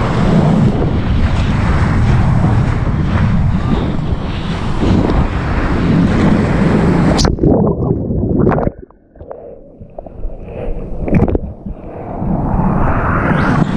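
Wind rushing over a chest- or board-level action-camera microphone, mixed with spraying whitewater as a surfboard rides a breaking river wave. About seven seconds in the rush cuts off suddenly, leaving quieter splashes and sloshing water that build again near the end.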